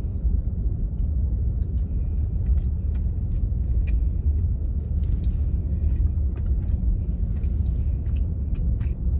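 Chewing with faint, scattered crunches from a mouthful of crispy rice sushi, over a steady low rumble in a car's cabin.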